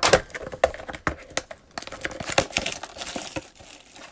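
Plastic shrink-wrap crinkling and tearing as it is stripped off a cardboard trading-card blaster box, with sharp clicks and rustles of the box being handled. The crackling thickens about halfway through.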